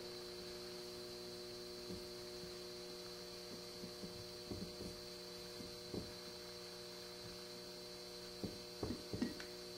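Steady electrical mains hum, with a few faint clicks and taps as a brake piston is pressed by hand into the bore of a rebuilt ATE fixed brake caliper; a small cluster of taps comes near the end.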